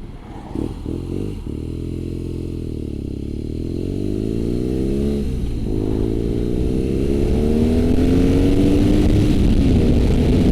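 BMW R nineT's boxer-twin engine under way, its pitch dipping as it slows and then climbing as it accelerates. About five seconds in there is a gear change, after which the pitch rises again and the engine grows louder.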